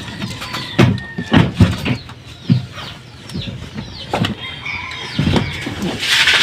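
Irregular knocks and clanks of tools and metal parts being handled during work under a car, with short high falling chirps or calls between them and a brief hiss near the end.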